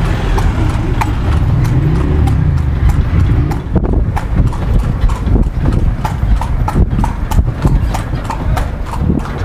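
Horse-drawn carriage: the horse's hooves striking the road in a steady clip-clop, two or three strikes a second, over a steady low rumble.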